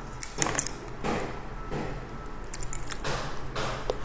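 Close-up crackling, crinkling and clicks of food being peeled by hand and eaten, coming in an irregular run of short bursts about every half second.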